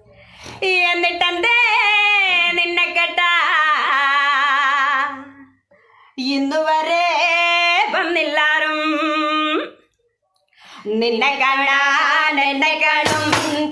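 Women singing a Malayalam folk song (nadan pattu) without accompaniment, in three long phrases with a wavering, ornamented pitch and short breaks for breath. Hand claps begin near the end.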